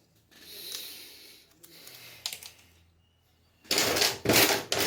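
A short rustle, then from near the end a loud, rapid rattling and clicking of small hard objects being rummaged through on a workbench.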